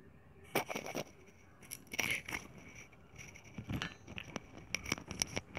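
Hard plastic Bluetooth speaker being handled close to the microphone: fingers rubbing, scraping and tapping on its casing and side panel in an irregular run of scrapes and clicks, starting about half a second in.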